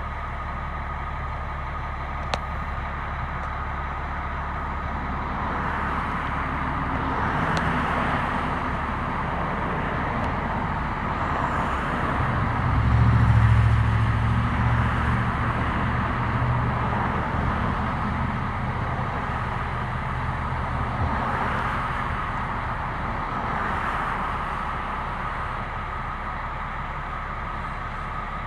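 Road vehicle engines passing by in several swells, with a heavy engine rumble loudest about halfway through, over a steady high-pitched tone.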